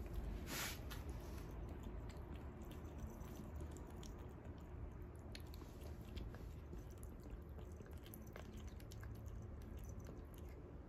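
Black kitten eating wet cat food from a bowl: a steady run of small, irregular wet chewing clicks. A brief hiss of noise comes about half a second in.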